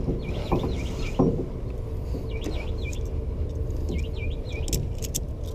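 A small bird chirping in short quick phrases, three or four times, over a steady low rumble of outdoor background noise. There are a couple of dull knocks about a second in.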